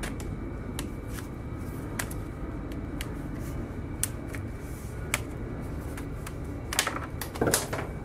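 Plastic pry tool working the bottom cover of a Gigabyte Aero 15 laptop loose: scattered sharp plastic clicks about once a second, with a louder flurry of clicks and snaps near the end.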